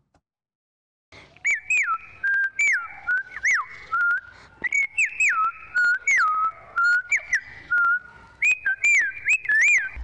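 A girl whistling an imitation of birdsong: a quick run of short notes that swoop up and fall back, starting about a second in, with sharp clicks among them.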